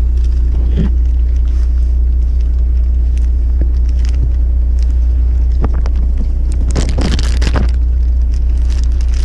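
Steady low drone of a fishing boat's engine, with scattered clicks and a short burst of rustling and clattering about seven seconds in.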